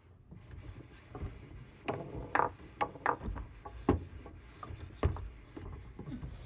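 Foosball table in play: a string of irregular hard clacks and knocks from the ball striking the plastic players, rods and walls, some with a short ringing tail.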